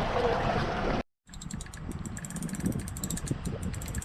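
After a brief cut to silence about a second in, a fishing reel clicks rapidly and steadily, a ratchet sound, as a big fish, taken for a stingray, pulls on the line.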